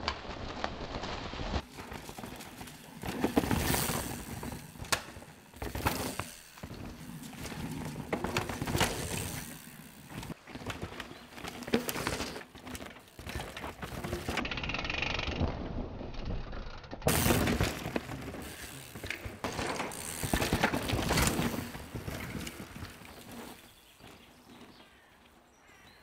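Downhill mountain bike ridden hard over a dry, rooty, rocky dirt trail: tyres skidding and crunching through dirt and stones, with sharp rattling knocks from the bike over the roots and rocks. It comes in a series of loud surges, then fades out over the last few seconds.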